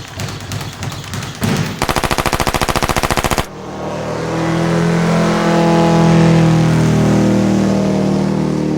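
A rapid burst of automatic gunfire, about fifteen shots a second, that cuts off abruptly. It is followed by a motor vehicle engine passing by, swelling to a peak and then fading as its pitch slowly drops.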